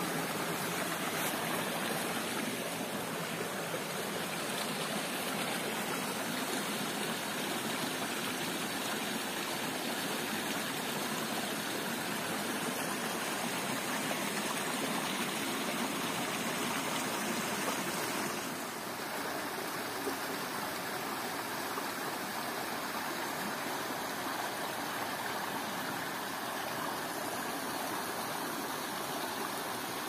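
Small rocky woodland stream running and splashing in little cascades over boulders, a steady rush of water that eases slightly a little past halfway.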